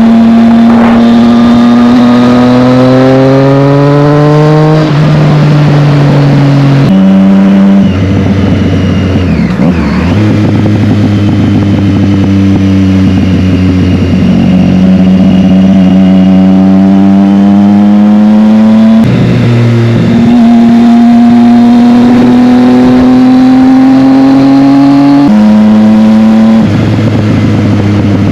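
Triumph Street Triple's three-cylinder engine through a Scorpion exhaust, ridden hard: the engine note climbs under acceleration and drops abruptly at each of several gear changes. On overrun, after the throttle closes, it gives loud crackles and pops.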